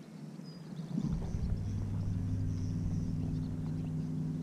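Steady low engine drone with a rumble underneath, growing louder about a second in and then holding steady.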